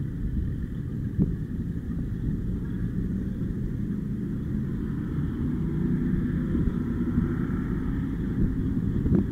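An offshore powerboat's big engines rumbling at low speed, a steady low rumble that grows a little louder in the second half.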